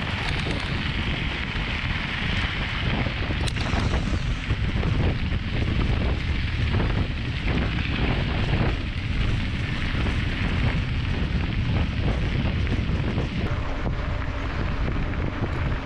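Wind buffeting an action camera's microphone on a mountain bike being ridden along a dirt road, a steady low rumble with tyre noise and a few sharp clicks.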